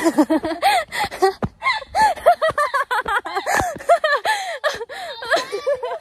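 Two women laughing hard and breathlessly: a run of short, high-pitched, rising-and-falling bursts of laughter, at times overlapping.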